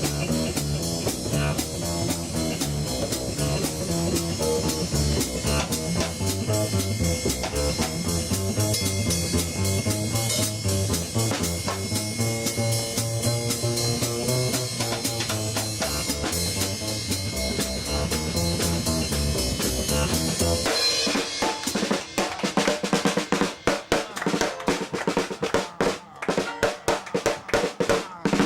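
A band playing with bass and drum kit; about three-quarters of the way through, the other instruments stop and the drum kit carries on alone with fast, dense drum strokes like a drum solo.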